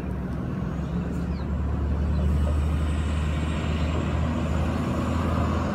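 Low, steady engine rumble of a road vehicle, growing louder about two seconds in, with a faint high whine falling slowly over it.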